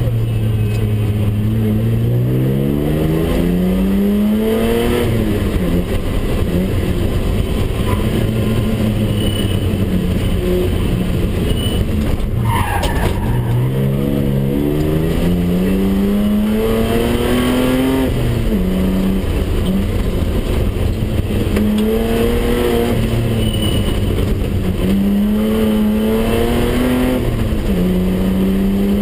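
BMW 320/6's straight-six engine heard from inside the cabin, revving hard and climbing in pitch, dropping back and pulling up again several times as the car is driven flat out on a loose dirt stage. A brief falling squeal cuts through about twelve seconds in.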